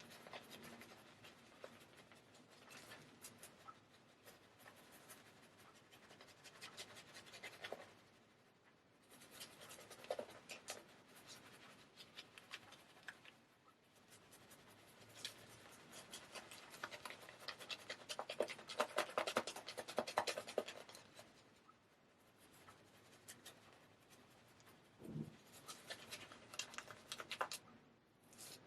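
Straight razor scraping through lathered beard stubble: runs of fine crackling strokes a few seconds long, with short pauses between them.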